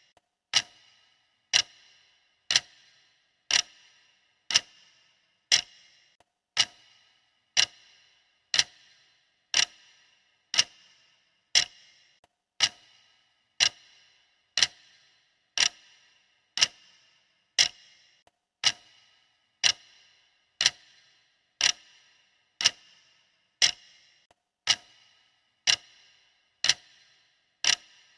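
Countdown timer's clock-style ticking: one sharp tick a second, each with a short bright ring, evenly paced.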